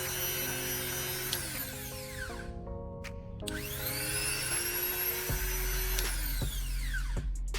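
Background music: electronic tones with repeated sweeping whooshes, a low drone coming in about five seconds in.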